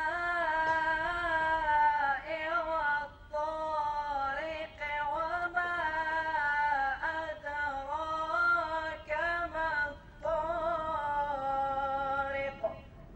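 A single voice singing a slow melody in long, wavering held notes, with short breaths between phrases; it stops shortly before the end.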